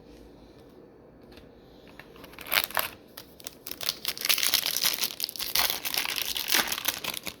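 A foil trading-card pack wrapper being torn open and crinkled by hand, starting about two seconds in with a few sharp crackles, then steady crinkling.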